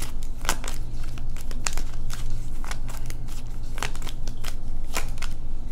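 A deck of tarot cards shuffled by hand: a run of irregular crisp clicks and flicks as the cards slide and snap against each other.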